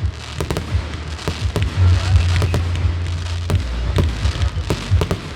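Consumer fireworks going off in quick succession: many sharp bangs and crackles at irregular intervals, several a second, over a low rumble.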